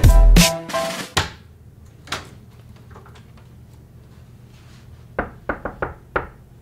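A music track ends with a last heavy beat in the first second. Then a quiet room with a faint steady hum, a single click about two seconds in, and a quick run of about five sharp knocks near the end.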